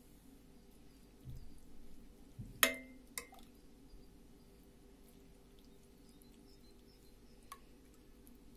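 A metal ladle clinks sharply against the cookware about two and a half seconds in, ringing briefly, with a lighter tap half a second later and a soft low knock just before. Otherwise only a faint steady room hum.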